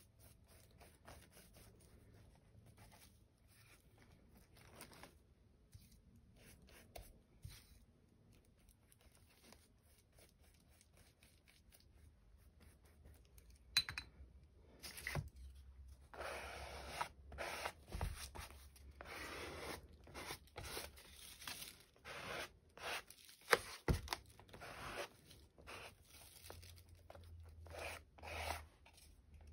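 Hands working collage paper close to the microphone: faint scratchy strokes at first, then from about halfway louder, irregular rustling as paper is cut and torn, with a couple of sharp clicks.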